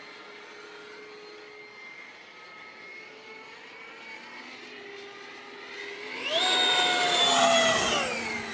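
Electric ducted fan of an HET L39 RC jet (HET 9305 fan unit on a Typhoon 700-68 motor) whining faintly at a distance. About six seconds in the whine rises in pitch and turns loud as the jet makes a low pass, then falls in pitch near the end as it goes by.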